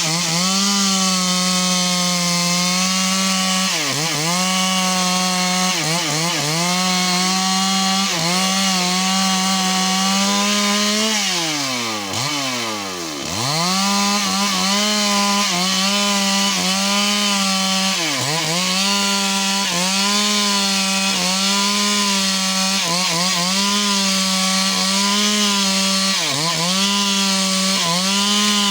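Chainsaw running at high revs while cutting wood. Its engine note dips in pitch every few seconds as the chain loads up in the cut, with one longer drop and recovery about halfway through.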